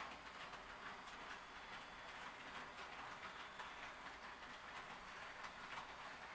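HO-scale model train running along the track: a faint steady running noise with light ticking from the wheels.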